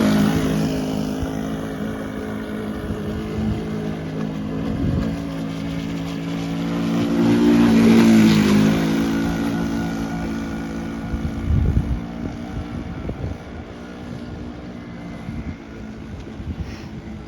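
Model boat's O.S. 40 four-stroke glow engine running steadily on the water. It is loudest as it passes close about eight seconds in, then fades as the boat moves away. Wind buffets the microphone now and then.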